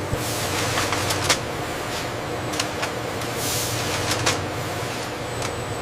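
Automated greenhouse tray-filling machinery running with a steady low hum, broken by irregular sharp clicks and short hisses.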